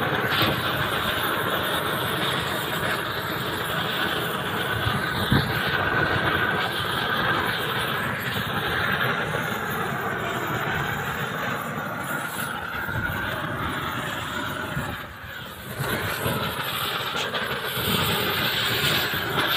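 Gas roofing torch burning steadily, its flame rushing as it melts the bitumen along the seam of a torch-on waterproofing membrane. The sound dips briefly about three quarters of the way through.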